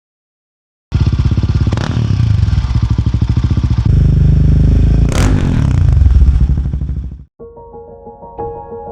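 Royal Enfield Himalayan 450's single-cylinder engine running loud through its exhaust, with a distinct pulse of separate firing strokes. It gets louder about three seconds in and gives one sharp crack a little later. It then fades and cuts off, and soft music takes over near the end.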